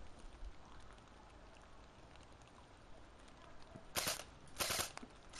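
Two short bursts of airsoft gunfire, about half a second apart, about four seconds in, after a quiet stretch.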